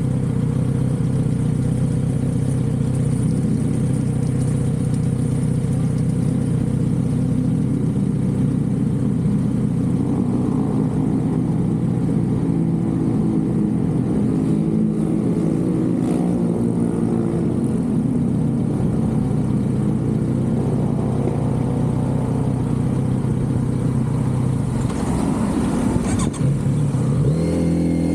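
Kawasaki Z900RS inline-four through its stock exhaust, heard while riding: the engine holds a steady note for about ten seconds, then the pitch wavers as the throttle changes, and it climbs in pitch near the end as the bike accelerates.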